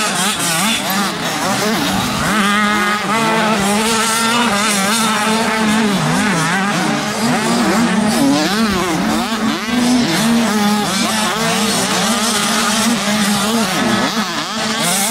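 Several 85cc two-stroke youth motocross bikes racing, their engines revving up and falling back again and again, several at different pitches at once.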